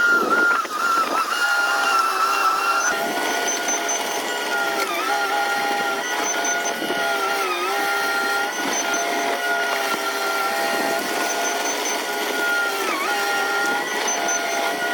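Bulldozer running with a steady whine whose pitch dips briefly now and then, as under load. Faint short high beeps come in small groups every few seconds.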